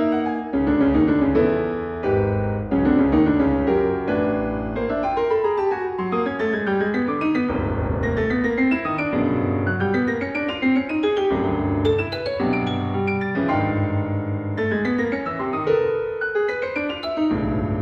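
Solo piano playing a classical piece: dense chords in the middle range over deep bass notes that are held and ring on.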